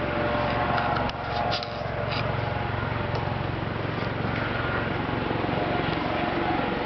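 Helicopter-like rotor sound from an unseen aircraft: a steady, fast, even chopping pulse with a tinny, sheet-metal ring that does not sound like an ordinary helicopter. A few sharp clicks come through in the first couple of seconds.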